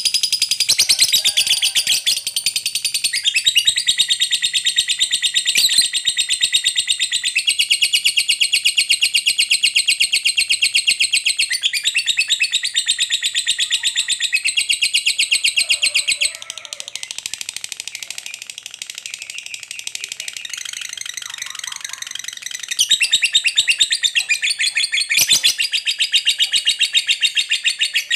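Lovebird giving the long, rapid chattering trill called 'ngekek panjang': an unbroken run of fast, shrill, high notes. It drops softer a little past the middle for several seconds, then comes back loud.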